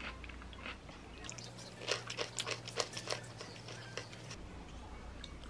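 Close-up chewing of a mouthful of burrata salad: a quick, irregular run of small moist clicks starting about a second in and stopping about three seconds later.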